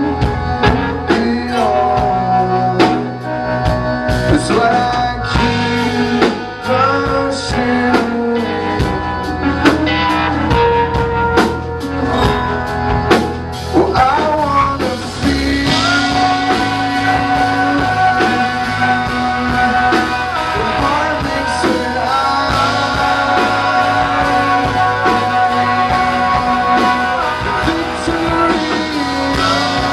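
A live rock band playing with electric guitars, bass and drums: dense, fast drum hits for about the first half, then held guitar chords ringing out over a lighter beat.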